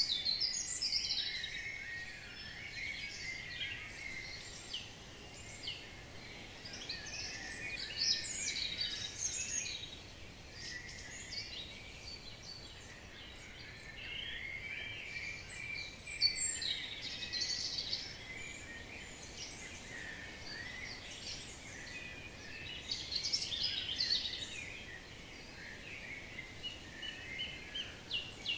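Several wild birds singing and calling at once: a dense chorus of overlapping high chirps and trills over a faint steady outdoor hiss.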